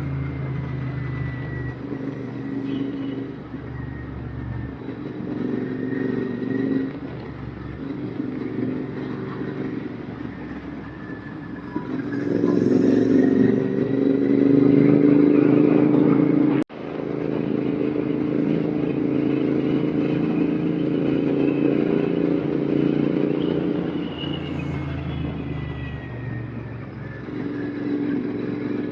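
Royal Enfield Continental GT 650 parallel-twin engine with an RRP aftermarket exhaust, running under way with its note rising and falling as the throttle changes. It grows loudest and highest about halfway through, then cuts out for an instant and carries on.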